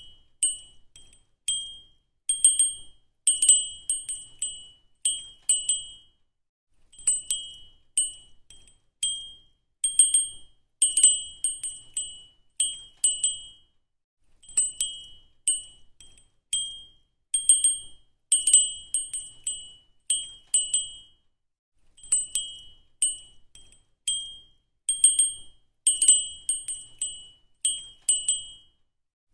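Bright, high tinkling chime tones struck in quick clusters at the same two pitches over and over, with a short break about every seven seconds: a looped chime sound effect.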